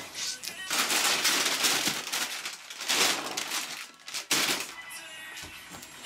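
Rustling and crinkling of fabric storage boxes being handled and shifted, in three noisy bursts, over soft background music.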